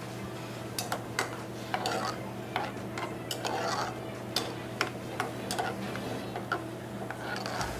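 Long metal spoon stirring corn kernels in boiling water in a metal saucepan, clinking and scraping irregularly against the pot, over a steady low hum.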